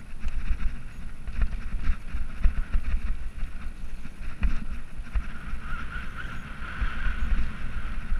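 Wind buffeting a GoPro action camera's microphone during a fast downhill ride over a dirt trail, a gusty low rumble with a steady scatter of rattles and clicks from the rough ground. A hissing whir grows louder for a couple of seconds past the middle.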